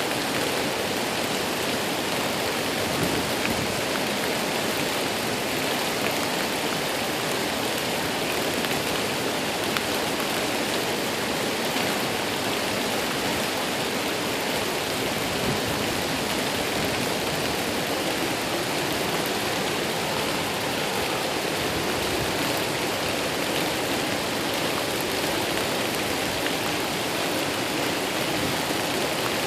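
Steady rush of water pouring over a waterfall, an unbroken even roar.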